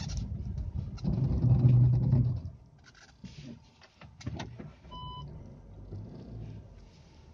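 Car cabin sound of a SEAT Ateca 4Drive driving on snow: a loud low rumble of engine and tyres that swells, then falls away about two and a half seconds in as the car comes to a stop. A few knocks follow, then a short electronic beep from the car about five seconds in.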